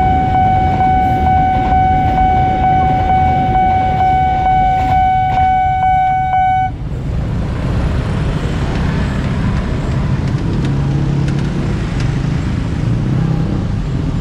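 Level-crossing warning signal sounding one steady tone over the rumble and wheel clatter of a passing container freight train. The signal cuts off suddenly about seven seconds in, leaving the low running of motorcycle and car engines as road traffic moves over the crossing.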